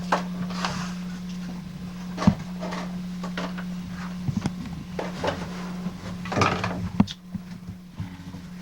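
Toy groceries handled and packed into a bag: scattered light knocks and rustles, the sharpest knocks about two seconds in and again near seven seconds, over a steady low hum.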